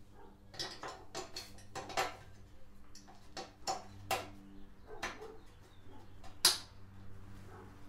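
Scattered clicks and knocks of the trailer plug harness bracket and its plastic clips being worked into the rear bumper, with one sharp, louder snap near the end as a clip seats.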